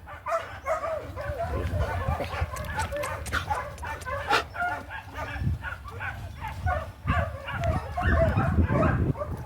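Dog barking and yipping in short repeated calls, over a low rumble.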